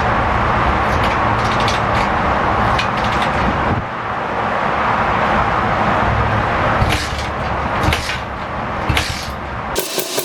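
Kawasaki KLX110's small single-cylinder four-stroke engine running, with a steady low rumble, on its first start after a fresh cylinder head. The engine sound cuts off suddenly near the end, leaving clicking.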